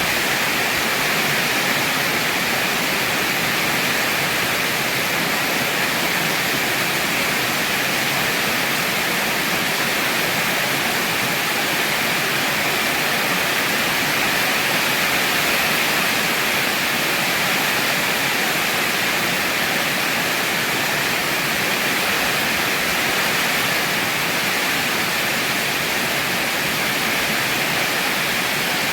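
Heavy rain falling steadily: an even, unbroken hiss with no thunder claps or gusts standing out.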